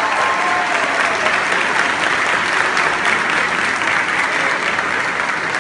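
Audience applauding the dancers' bow with dense, steady clapping that eases off slightly toward the end.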